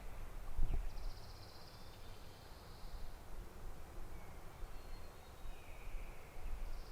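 Small songbirds singing short high trilled phrases, about a second in, again later and once more at the end, over a low steady rumble. A soft knock just over half a second in.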